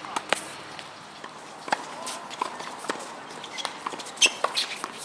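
Doubles tennis rally on a hard court: sharp, separate pops of racquets striking the ball, the loudest about four seconds in, with players' footsteps on the court between them.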